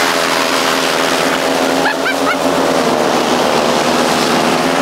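Hirth 2703 two-stroke ultralight airplane engine running steadily at speed, spinning the pusher propeller that drives a go-kart. The engine note holds even and loud.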